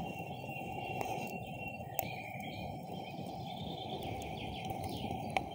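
Wood campfire burning, with sharp pops of the burning wood about one, two and five seconds in, the last the loudest. Birds chirp in the background.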